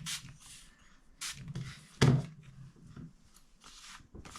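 Several short spritzes from a hand spray bottle of water onto card, with a louder knock about two seconds in.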